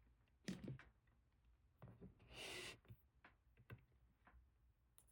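Near silence, with a few faint clicks and a soft rustle about two and a half seconds in, from wires and small parts being handled.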